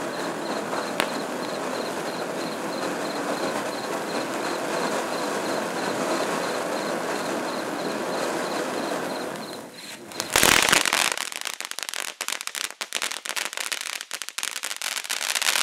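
Little Red Devil ground fountain firework spraying sparks with a steady hiss for about nine seconds. After a brief dip there is a loud burst, then a fast crackling that runs on to the end.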